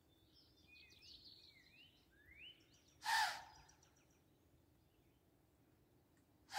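A songbird sings a short chirping phrase. Then a white-tailed deer blows twice, about three and a half seconds apart: loud, short, rushing snorts of air, the alarm blow of a deer that has sensed danger.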